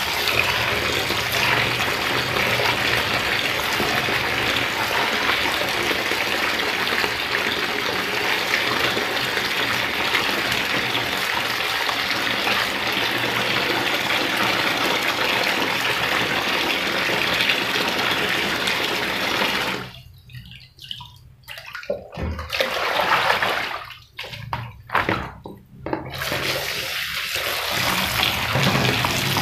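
Tap water running and splashing into a basin in a stainless-steel sink while water spinach is rinsed by hand in it. The steady rush breaks off abruptly several times for a second or so about two-thirds of the way through, then carries on.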